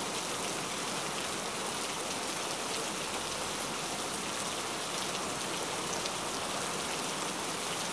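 Steady rain falling, an even hiss with faint scattered drop taps.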